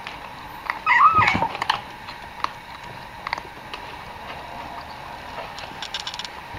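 Cats eating from a plastic tray, with scattered chewing and smacking clicks. About a second in, one cat gives a short, wavering, high-pitched vocalization, the loudest sound here.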